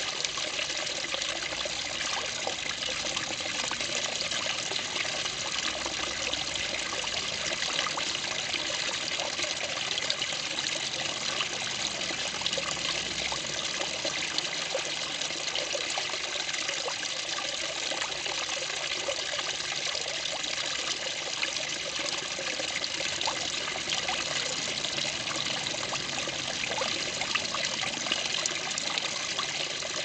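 Small garden pond waterfall: water spilling over a stone lip and splashing steadily into the pond below.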